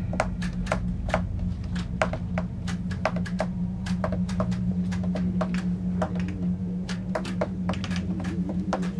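Irregular sharp clicks and crackles, several a second, over a steady low hum.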